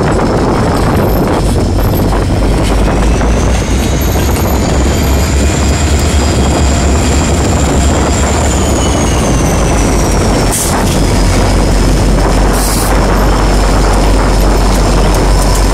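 Diesel freight locomotives passing close by, their engines running with a heavy low rumble and a faint high whine that rises, holds and falls away. A sharp click and a short hiss come about two-thirds of the way through.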